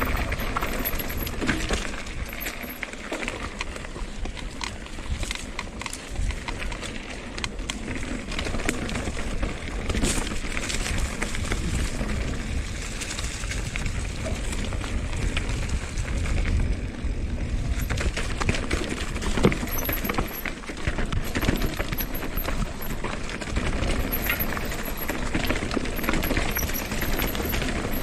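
Mountain bike riding down a rocky trail: tyres rolling over rock and stones, with frequent knocks and rattles from the bike as it drops over bumps and steps.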